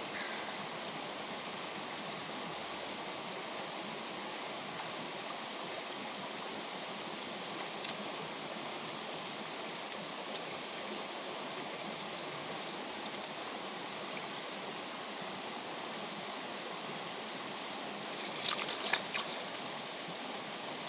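Shallow stream running over rocks: a steady rush of water. A few sharp clicks come in near the end.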